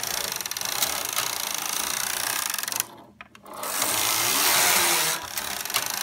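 Knitting machine carriage, coupled to the ribber carriage by its connecting arm, pushed by hand along the needle bed: a steady clattering rush, a brief stop about three seconds in, then a second, louder pass. The carriages are running through freely here, without jamming or disconnecting.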